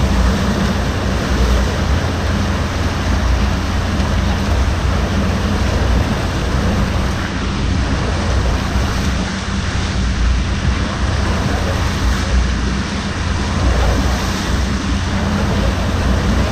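Steady rush of churning whitewater from an artificial standing surf wave, with a strong low rumble underneath.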